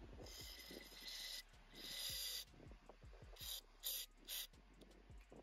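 Aerosol carburetor cleaner hissing as it is sprayed through a thin extension straw into a small generator carburetor's throat to flush its passages. Two longer sprays come first, then three short quick bursts.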